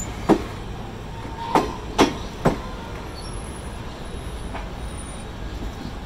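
Union Pacific passenger cars rolling slowly past on track: a steady low rumble with sharp metallic clacks as the wheels cross rail joints, four in the first two and a half seconds and a fainter one later.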